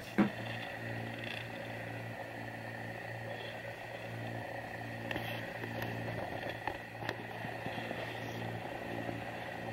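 A boat's engine running steadily under way: an even low drone with a faint steady higher whine.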